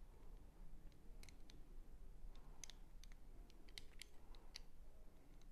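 Faint, scattered small clicks, about a dozen at uneven intervals, from a Canik TP9 SFX Mete pistol's recoil spring assembly and guide rod being worked by hand into the slide while the spring is not yet seated.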